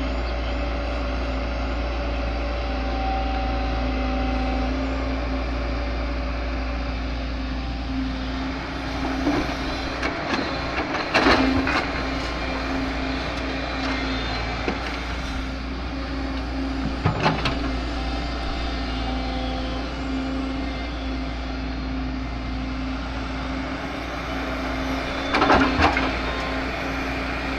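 An excavator's diesel engine running steadily while it loads mud into a tractor trolley. Three loud clattering knocks come from the bucket and the load, about eleven, seventeen and twenty-five seconds in.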